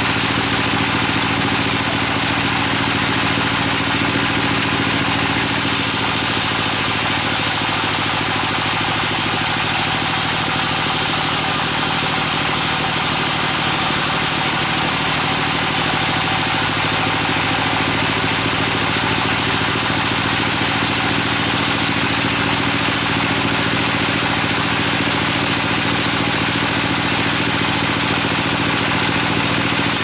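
Band sawmill running and cutting a long, bone-dry teak log: a steady machine hum under a dense hiss from the blade in the wood. The hiss turns brighter from about five to sixteen seconds in.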